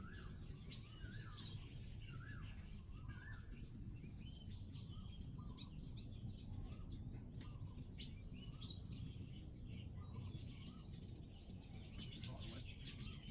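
Small birds chirping over and over in short quick notes, over a steady low rumble.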